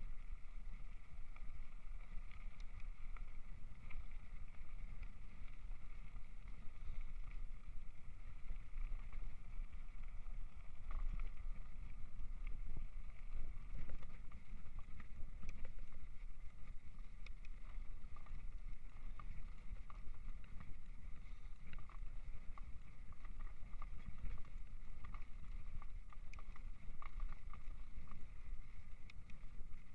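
Mountain bike ridden over a rough gravel and grass field track: a steady low rumble from the tyres and wind on the microphone, with frequent small rattles and clicks from the bike.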